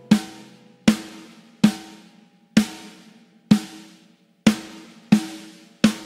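A toy drum struck with drumsticks, single beats about once a second, eight in all, each ringing out briefly before the next.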